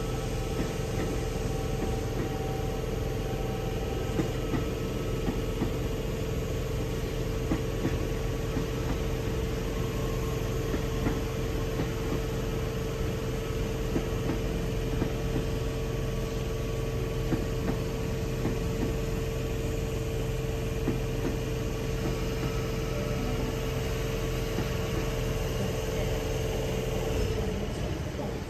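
Intercity V set double-deck electric train standing at the platform: a steady electrical whine over a low hum that holds unchanged and fades out near the end.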